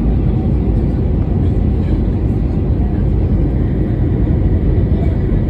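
Steady low noise of a passenger airliner in flight, engines and rushing air heard from inside the cabin.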